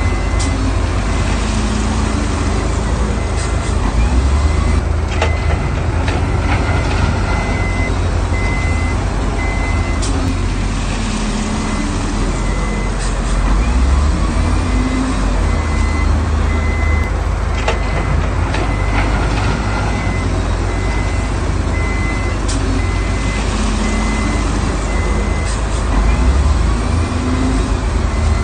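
Heavy diesel earthmoving machinery running with a deep steady rumble, while a reversing alarm beeps at an even pace. A few sharp knocks, like stone or steel striking, stand out over the engine noise.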